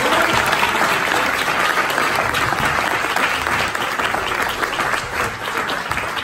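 Audience applauding: dense, steady clapping from a roomful of people that eases off slightly near the end.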